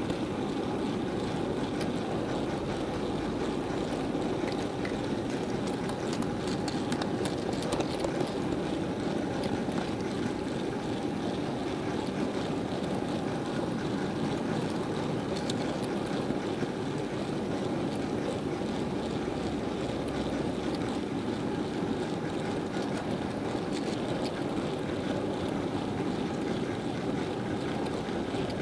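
Steady rumbling running noise of a model railway freight train, picked up by a small camera riding on one of its moving wagons: wheels rolling on the track and the wagon's vibration.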